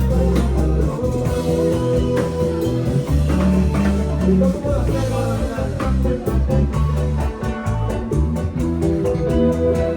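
Music with a strong bass line and a steady beat, in a Latin dance style.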